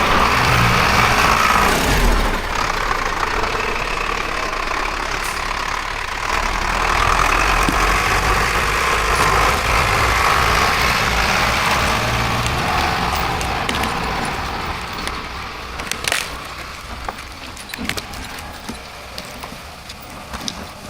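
An engine running steadily, louder between about six and thirteen seconds in, then dying away, with scattered sharp knocks over the last few seconds.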